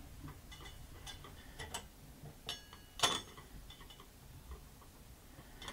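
Faint, scattered metallic clicks and light taps, one louder about three seconds in, some with a brief ring: an Allen wrench working the set screw under a chrome tub spout as the spout is snugged onto the copper pipe.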